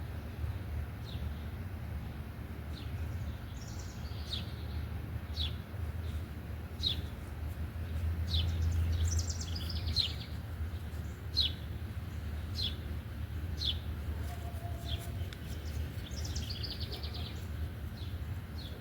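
Birds chirping: short falling chirps repeated about once every second or so, with a few brief rapid trills. Under them runs a steady low rumble that swells for a moment around the middle.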